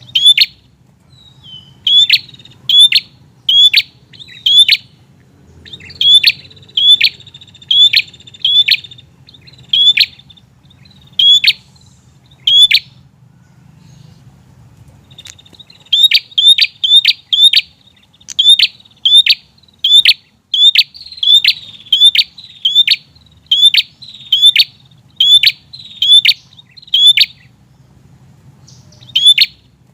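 Prinia (prenjak) calling: sharp, high chip notes repeated one to three times a second in runs. There is a pause of a couple of seconds about halfway and another near the end.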